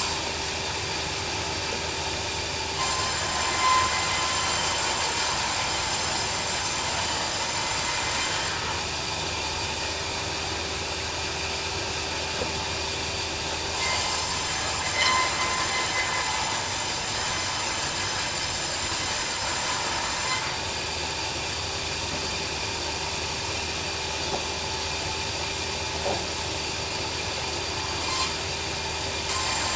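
Band sawmill running steadily, its level rising and falling in sections of several seconds as the blade alternately cuts through a log and runs free between passes.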